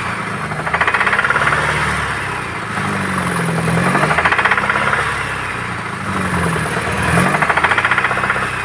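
GAZelle van's engine revved up and down about three times, with a fast knock coming through as the revs rise. The knock started after the throttle stuck wide open and the engine over-revved with the clutch pressed, and it comes only in a certain rev range.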